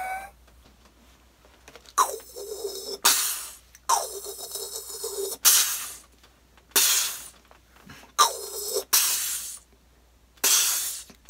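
A person making sound effects with the mouth: short bursts of hiss alternating with voiced sounds that start sharply, drop in pitch and hold a low tone, repeated about eight times.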